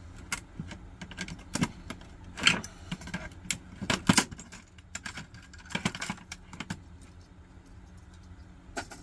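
Irregular clicks, knocks and light metallic rattling of small metal parts and a hand tool being handled as a computer CD/floppy drive is taken apart, loudest around four seconds in and sparser over the last couple of seconds.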